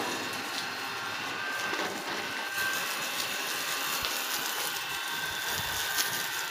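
Water spraying from a hose onto a dusty floor: a steady hiss and splatter.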